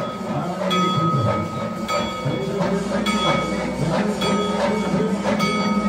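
A bell struck in a steady rhythm, just under two strokes a second, each stroke ringing on briefly, over the murmur of a crowd.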